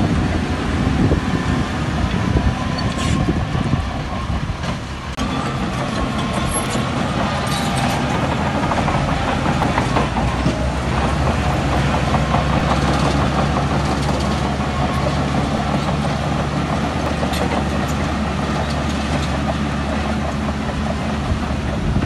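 Bulldozer's diesel engine running steadily, with a few sharp metallic clanks and a wavering whine for several seconds in the middle.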